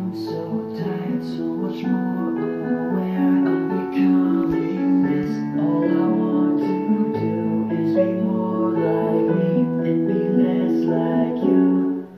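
Background music: strummed acoustic guitar chords at a steady level.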